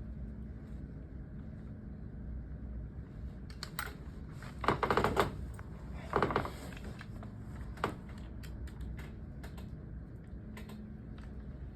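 Allen key working a screw loose on a 1903 Springfield drill rifle: scattered small metal clicks, with two short rasping bursts around five and six seconds in as the screw breaks free and turns out.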